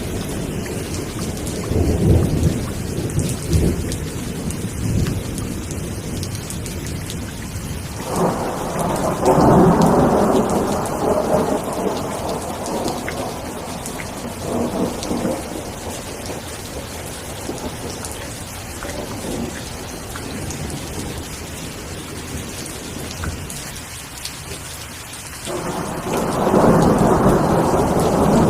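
Steady heavy rain with thunder rumbling over it. There is a low rumble in the first few seconds, then a loud peal breaks out suddenly about eight seconds in and dies away slowly; another begins sharply near the end.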